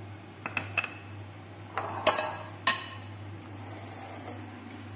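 A metal spoon clinking against a glass mixing bowl: three light clinks about half a second in, then two sharper, ringing clinks about two and two and a half seconds in.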